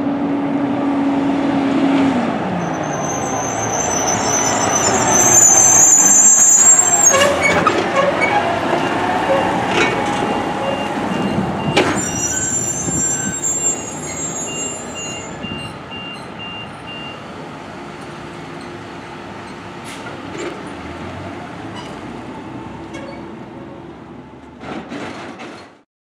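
Diesel garbage trucks driving past close by, first a side-loader, then a rear-loader. The engine note drops about two seconds in, the sound is loudest around six to seven seconds in, and a few sharp clicks stand out along the way.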